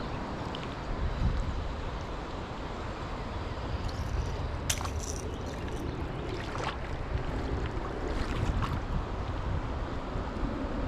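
Steady rushing of river water with wind buffeting the microphone, and a few faint sharp clicks around the middle.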